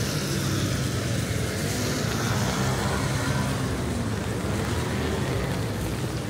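Wet city street ambience: traffic on rain-soaked roads gives a steady low rumble with hiss, and wind is rumbling on the microphone.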